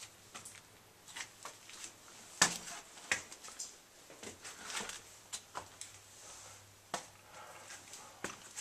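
Footsteps scuffing over a gritty stone floor, with scattered irregular clicks and knocks, the sharpest about two and a half seconds in.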